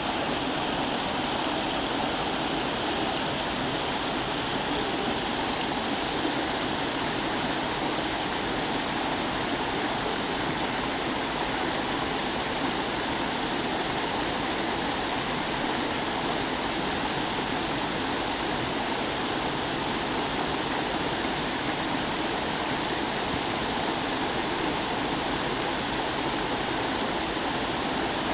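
Steady rushing of a flowing stream over rocks, even and unbroken.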